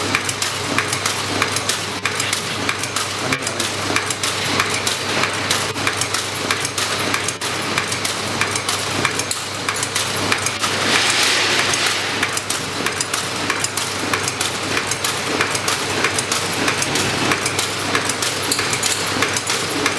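Tea packaging machine running: a steady hum under fast, continuous mechanical clicking and clinking, with a louder hiss for about a second midway.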